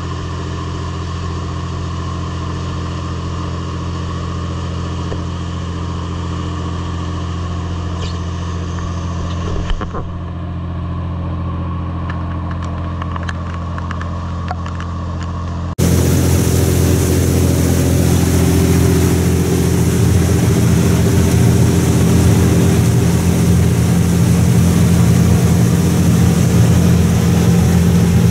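A riverboat's inboard engine running steadily under way, a low even drone. About halfway through it gets suddenly louder and a rushing noise of wind and rain joins it.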